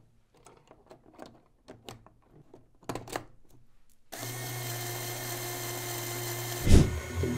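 Light plastic clicks of LEGO Technic parts being handled, then about four seconds in a LEGO Power Functions motor starts and runs steadily, its gear train and universal-joint transmission whirring as the arm swings round. A single loud knock comes near the end.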